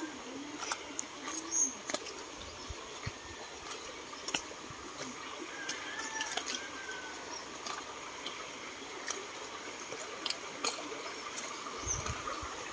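Faint outdoor ambience beside a shallow stream: a steady low hiss with scattered sharp clicks and a few short, faint chirps.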